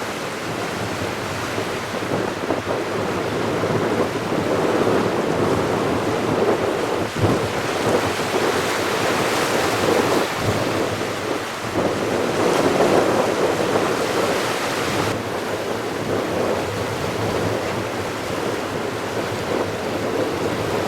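Strong wind buffeting the microphone over the steady wash of surf, swelling and easing in gusts.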